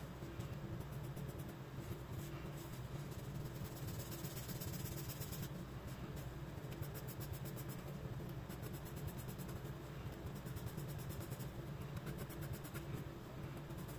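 A graphite pencil scratching on sketchbook paper in quick, repeated hatching strokes as an eye drawing is shaded, the strokes coming in dense runs.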